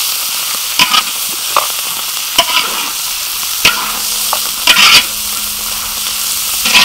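Beef slices and chili paste frying in a large wok: a steady sizzle, with a metal ladle scraping and knocking against the wok several times as the food is stirred, loudest about five seconds in.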